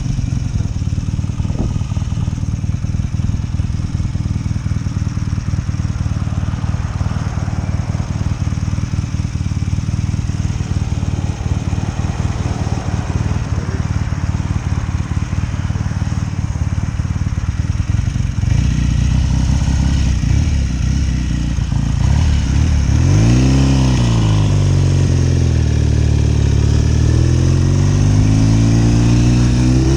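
1972 BSA Lightning's 650 cc parallel-twin engine running as the motorcycle is ridden. About two-thirds of the way through it gets louder, its pitch rises and drops once, then climbs slowly again near the end.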